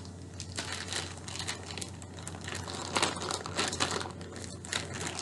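Clear plastic bag crinkling as it is handled and opened, in irregular rustles, with the loudest crackles about three seconds in.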